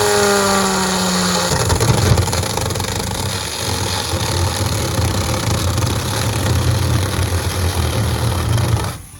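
Battery-powered mini chainsaw cutting a hole in a brooder box. The motor whine drops in pitch as the chain bites, then there is a steady rough cutting sound. It stops abruptly about nine seconds in.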